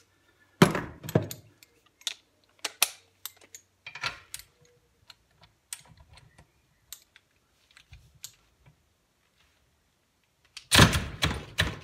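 Loud clunks of a metal wrench being set down on the bench, then sparse clicks of tools being handled around the vise. Near the end comes a louder, denser run of clicking as the ACDelco ARW-1209 cordless 3/8-inch ratchet is run against a bolt torqued to 55 ft-lb. It fails to break the bolt loose, which is beyond its 45 ft-lb rating.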